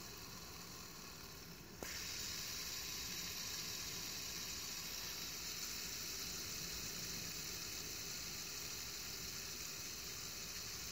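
Fidget spinner spinning in the fingers, its bearing giving a faint, steady whirring hiss. A small click comes about two seconds in, after which the whir is louder and brighter.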